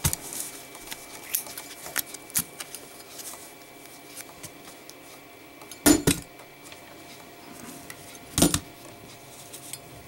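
Zippo lighter drop test: light metallic clicks of the lighter being handled, then two heavy thuds of the metal lighter hitting the table, about six and eight and a half seconds in.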